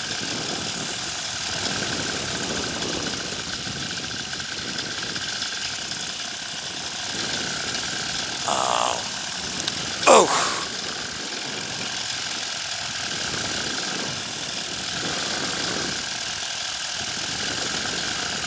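Paramotor engine running steadily in flight, its drone holding one even pitch, with wind rushing over the microphone. A brief sharp sound breaks in about ten seconds in.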